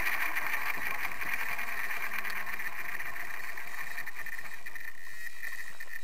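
Align T-Rex 700E electric RC helicopter's brushless motor and rotor running on the ground, heard through the onboard camera's microphone as a steady high whine with hiss. It slowly fades and cuts off near the end.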